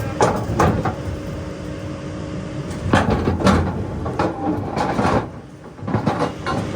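Irregular metallic clanks and knocks of heavy equipment at work, over a steady engine hum that drops away about three seconds in.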